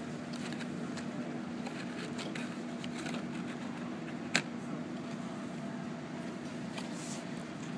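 Cardboard pop-up book being handled: faint rustles and light ticks of stiff paper, with one sharp click about four and a half seconds in, over a steady low room hum.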